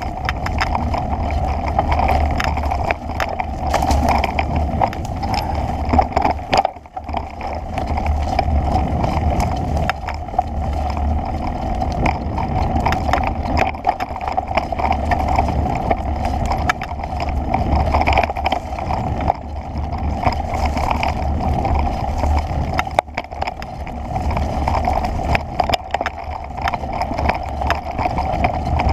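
Wind rushing over the microphone of a camera moving fast along a bumpy dirt trail, with frequent rattles and knocks as it jolts over the ground. The rush drops off briefly twice, about seven seconds in and again near the end.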